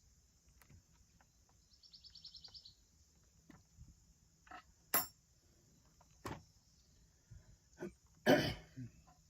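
A series of sharp clicks and clinks, loudest about eight seconds in, over steady insect chirring, with a short pulsed trill about two seconds in.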